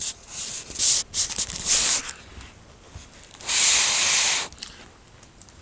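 Rubbing and hissing noise: a few short scrapes in the first two seconds, then a steady hiss for about a second.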